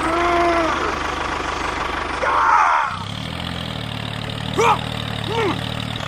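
Tractor engine running, then settling into a steady low idle hum about three seconds in. Short squeaky voice-like sounds come once at the start and twice near the end.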